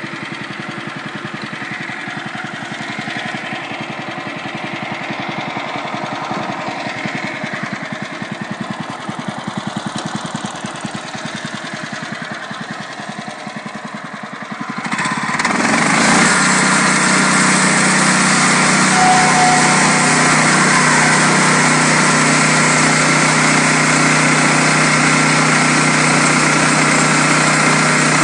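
Small gasoline engine of a portable band sawmill running at a low speed, then about halfway through it speeds up and the mill gets much louder, holding steady at the higher speed to the end.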